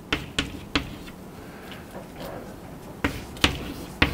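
Chalk tapping and scraping on a blackboard as a word is written: a series of sharp clicks, three in the first second and a quicker cluster near the end.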